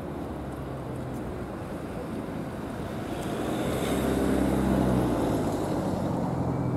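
Steady low engine rumble mixed with wind on the microphone, swelling louder for a couple of seconds about halfway through.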